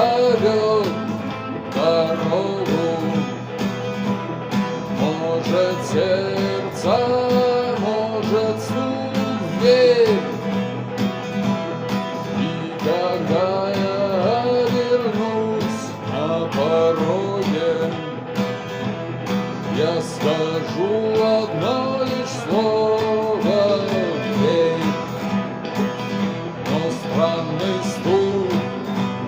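Music: a song played with guitars, a melody line bending in pitch over steady low accompaniment.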